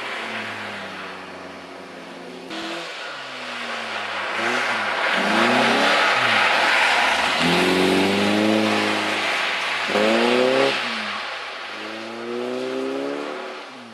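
Car engine revving up and down again and again as the car slides sideways on a snow-covered ice track, the revs climbing and dropping several times. A hiss of spinning tyres and thrown snow comes with it, loudest in the middle.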